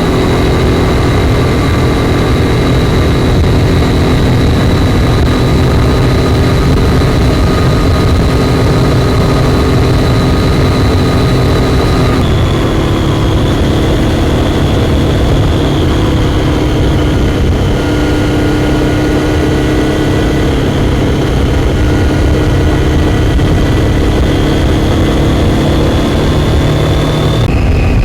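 Triumph Daytona 675's inline three-cylinder engine running steadily under way at speed. Its note drops a step about twelve seconds in and again near the end.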